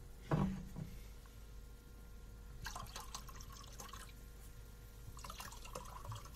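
Red wine being poured from a bottle into a glass, gurgling and splashing in two spells, after a brief louder sound near the start.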